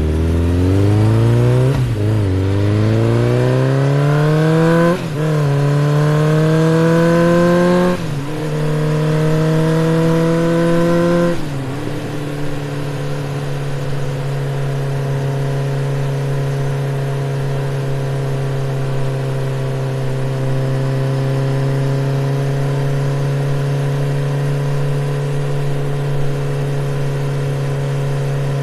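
Honda CB150X's single-cylinder 150 cc engine pulling hard up through the gears, its pitch climbing and dropping at four upshifts, then settling into a steady cruise for the second half.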